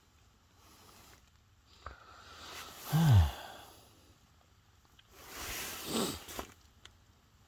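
A person's voiced sigh about three seconds in, falling in pitch, followed a few seconds later by a longer breath out.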